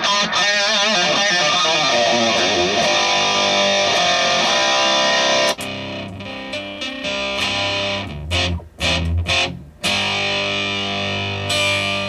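Electric guitar played through an Avid Eleven Rack with distortion and effects: a loud, dense sustained sound with wavering pitch, then a sudden change to a quieter, cleaner tone about halfway through, as if switching presets. Several short choppy chords follow, then a held chord near the end.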